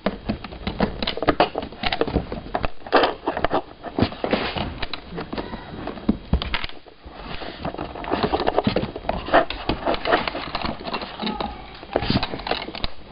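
Irregular clicks, knocks and rustling of hands handling a soldering iron handpiece and its cord while plugging its connector into the soldering station.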